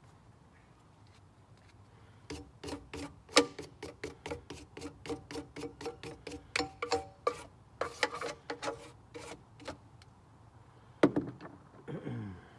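Hand work on a floor machine's housing: a run of sharp, irregular clicks, about three a second, each with a short ringing tone. Near the end comes a louder knock, then a falling tone.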